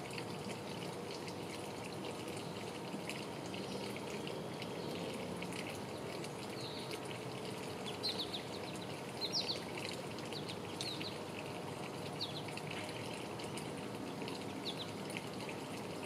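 Steady outdoor hiss with short, high bird chirps scattered through it, several in quick clusters around the middle.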